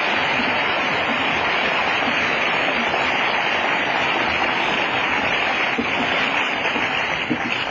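Audience applauding steadily at the close of a lecture, starting to fade near the end.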